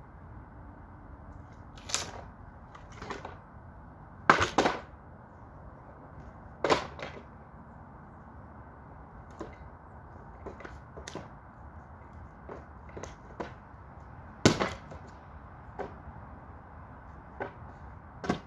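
Pieces of a bed frame being broken apart by stomping and prying, giving sharp cracks and knocks at irregular intervals. The loudest is a double crack about four seconds in, and another comes about three quarters of the way through.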